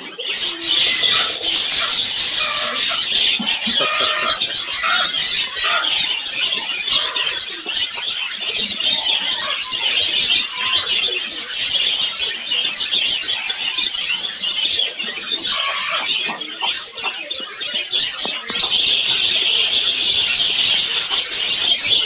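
Many caged birds chirping and twittering at once in a dense, continuous chorus, louder over the last few seconds.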